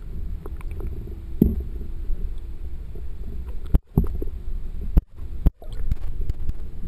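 Low steady rumble of water moving against an underwater camera housing, with a few sharp knocks and two brief dropouts around the middle.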